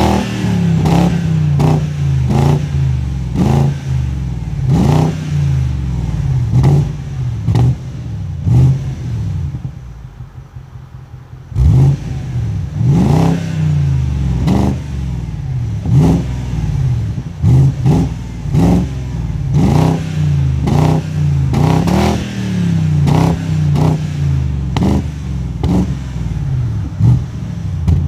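Stock exhaust of a 2006 BMW X5 4.8is and its N62 4.8-litre V8, revved in quick throttle blips about once a second. There is a short drop back to idle around ten seconds in, then the blips start again.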